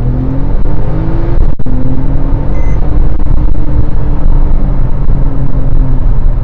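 Porsche 911 Turbo S's twin-turbo flat-six at full throttle, heard from inside the cabin: the revs climb, drop with a quick upshift of the freshly repaired PDK dual-clutch gearbox about a second and a half in, then climb again and level off.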